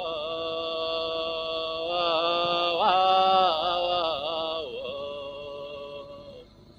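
Background music: a chant-like melodic line holding long notes, with wavering, ornamented turns in the middle where it is loudest, then a held note that fades out near the end.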